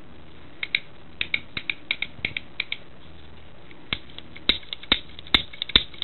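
Shimano bicycle trigger shifter clicking as its lever is worked: a quick run of about ten small clicks, then a few louder clicks and knocks as it is handled.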